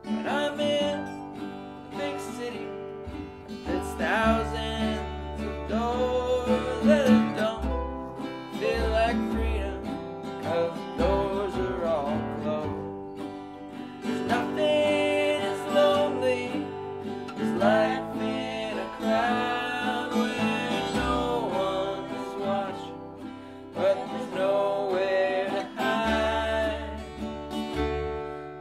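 Acoustic string band playing a song: acoustic guitar, ukulele, mandolin and upright bass, with a woman and a man singing.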